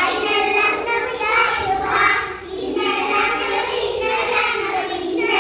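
Young children singing a song together.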